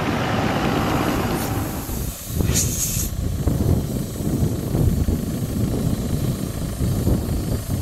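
A lifted four-by-four pickup drives by on a gravel track, its engine and tyres running. About two seconds in, the sound cuts to an irregular low rumble of wind buffeting the microphone, with a brief hiss just before the three-second mark.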